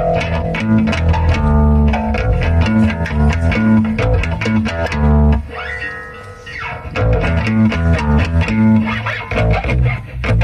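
Rock band playing live at a soundcheck: electric guitar and bass guitar with a steady beat. The low end and the beat drop out briefly about halfway through, then the band comes back in.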